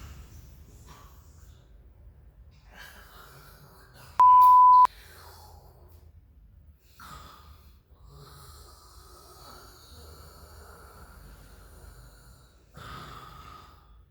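A single loud, steady electronic beep, one pure tone lasting under a second, about four seconds in. Around it are faint, irregular breathing noises.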